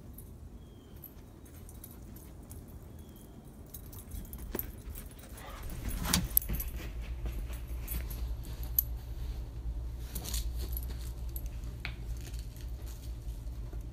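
Husky puppy chewing a ball on a leather couch: irregular clicks and gnawing with a high jingling, likely its collar tags, over a steady low hum.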